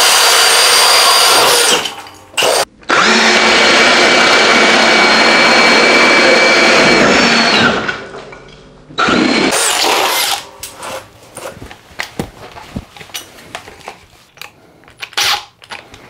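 Cordless hammer drills (Milwaukee M18 Fuel Gen 4 and Makita 40V XGT) in drilling mode, boring 1-inch spade bits through a wooden block: a loud motor whine with the bits chewing wood. It stops briefly about two seconds in, runs again to about eight seconds, and gives one more short burst near ten seconds. After that come light clicks and knocks from handling the drills.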